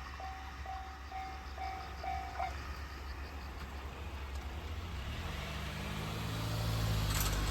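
Japanese railway level-crossing warning bell ringing its electronic clang about twice a second, then stopping about two and a half seconds in as the crossing clears. Toward the end a road vehicle's engine grows louder as it approaches.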